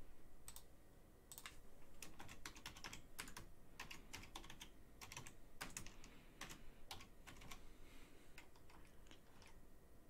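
Computer keyboard being typed on: faint, irregular key clicks as words are typed in.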